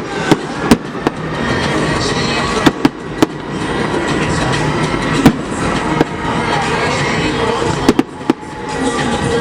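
Fireworks display: sharp bangs of shells bursting at irregular intervals, about a dozen in all, the loudest a little after five seconds in, over a continuous dense rumble and crackle.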